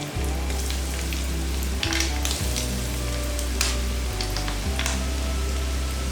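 Snacks frying in hot oil, a steady sizzle with scattered crackles and pops.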